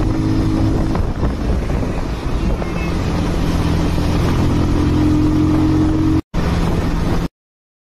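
Motorcycle engine running steadily at highway speed, mixed with wind rush on the microphone. The sound cuts out briefly about six seconds in and again just before the end.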